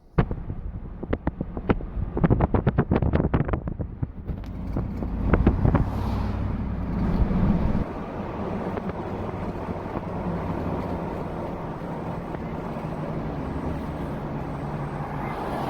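Vehicle driving, with engine drone and road noise inside the cab. A quick run of clicks and knocks comes in the first few seconds, the rumble is heaviest until about halfway, and then the drone settles to a steady level.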